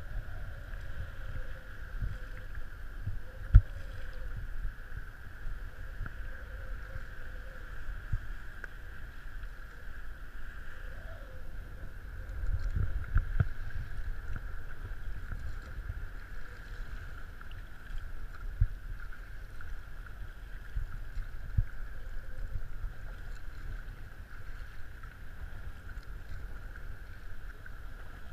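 Choppy seawater sloshing and slapping against a sea kayak as it is paddled, with a steady hiss, low wind rumble on the microphone, and occasional sharp knocks, the loudest about three and a half seconds in.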